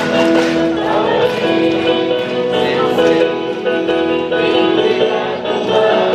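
Music with singing, moving through long held notes over a steady accompaniment.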